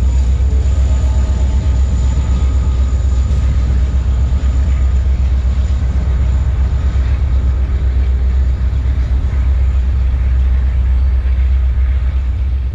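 Steady, loud low rumble of BNSF diesel locomotives on a coal train pulling away into the distance.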